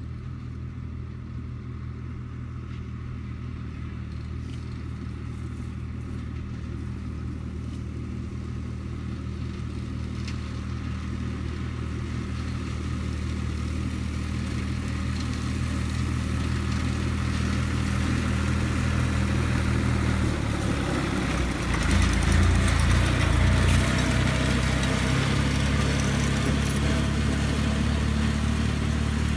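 New Holland TT55 tractor's diesel engine running steadily under load while mowing, with the mower's cutting noise, growing louder as it approaches. A little past two-thirds through the engine note shifts lower and the cutting noise is at its loudest as it passes close and turns.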